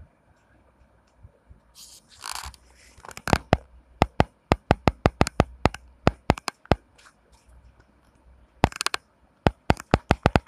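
A rapid series of sharp taps, about four or five a second, in two runs with a pause of about two seconds between them, after a brief scraping sound.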